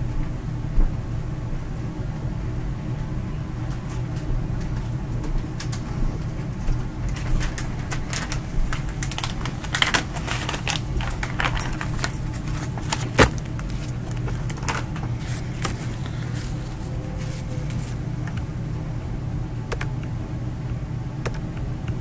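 A steady low hum, with scattered light clicks and knocks that are busiest around the middle and one sharper knock among them.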